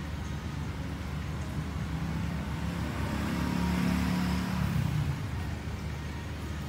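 A road vehicle passing by, its engine noise swelling to a peak a few seconds in and then fading, over a steady low hum.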